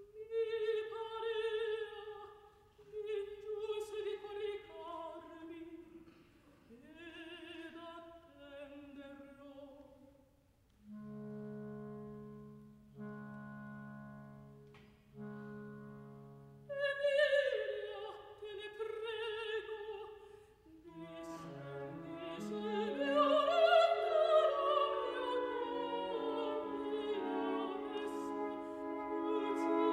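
Orchestra playing the introduction to an opera aria. A single melodic line comes first, then three held chords, then fuller playing that builds up.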